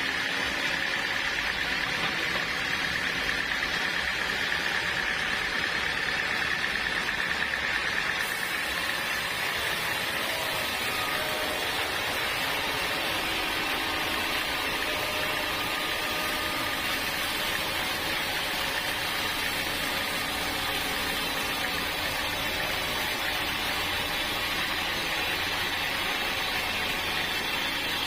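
Band sawmill running steadily through a log of hard, fibrous acacia wood. A high whine fades over the first several seconds, and about eight seconds in the sound turns suddenly hissier.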